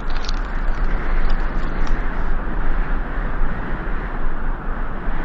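Strong wind blowing, a steady loud rush with a deep rumble underneath.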